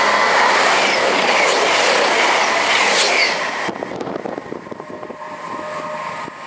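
CrossCountry Voyager diesel multiple unit passing through a station at speed: a loud rush of wheels and engines that cuts off sharply about three and a half seconds in. After that comes a fading rumble with rail clicks as the train runs away.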